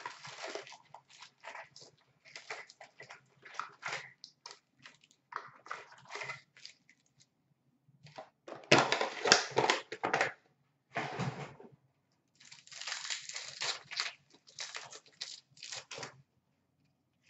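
Trading card packs and boxes being handled: wrappers torn open and crinkling, with cardboard and cards scraping and tapping in irregular bursts. The loudest bout of tearing and rustling comes a little past the middle.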